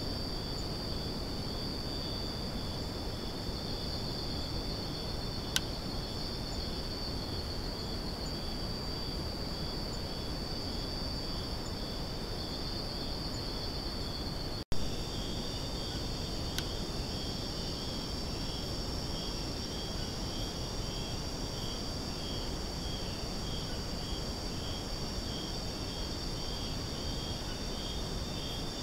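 A chorus of night-calling insects: a steady high-pitched trill, with a second, pulsing trill a little lower, over an even hiss. There is a brief break about halfway and two faint clicks.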